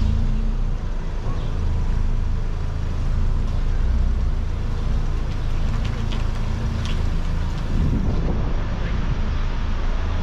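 City street traffic: a steady low rumble of vehicle engines, with a few faint clicks over it.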